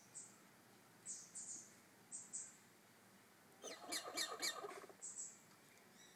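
Pet mimic bird making short, sharp, high hissy chirps, mostly in pairs, and about four seconds in a quick run of about five falling squawky calls.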